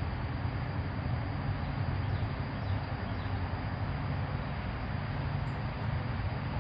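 Steady low rumbling background noise with a faint hiss over it, with no distinct events.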